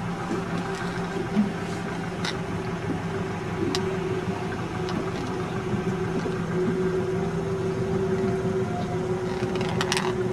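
Fishing boat's engine running steadily, with a few light clicks on board.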